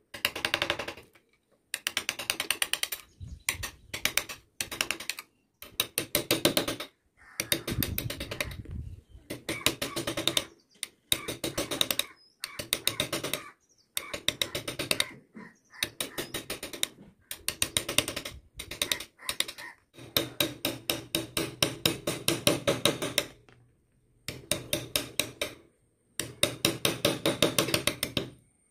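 Flat wood-carving chisel pushed by hand through wood, the blade crackling through the fibres in rapid runs of clicks. The strokes last one to three seconds each, with short pauses between them.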